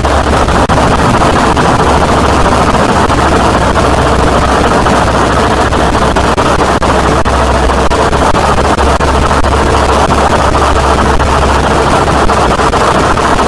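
Harsh noise music: a loud, unbroken wall of distorted noise over a steady low rumble, crackling throughout, with no beat or melody.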